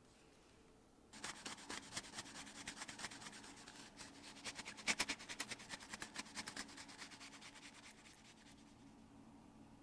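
Cloth rubbed rapidly back and forth along the edge of a leather strap, a fast run of scratchy friction strokes that starts about a second in, peaks midway and fades out near the end. Typical of burnishing a leather edge by hand.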